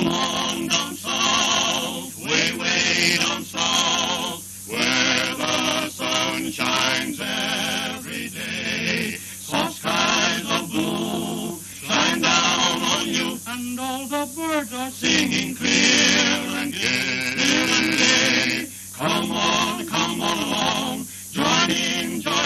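Male vocal group singing together in harmony, in phrases with strong vibrato and short breaths between them; about halfway through, one voice holds a long wavering note. It is heard through an early sound-film recording with a steady low hum.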